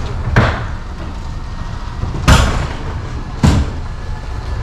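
Car with its engine running, a steady low hum, broken by three sharp thumps: one about half a second in, the loudest a little after two seconds, and another about a second later.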